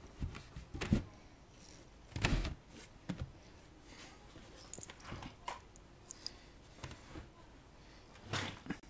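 Scattered knocks and thumps of handling on a wooden speaker cabinet, the loudest about two seconds in and another near the end.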